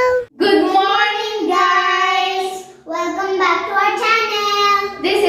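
A child singing without accompaniment in drawn-out notes, breaking off briefly a little past halfway and then carrying on.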